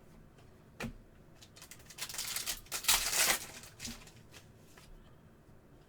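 Trading card packs being opened and handled: a sharp click about a second in, then two rustling, tearing bursts of foil wrapper and sliding cards about two and three seconds in.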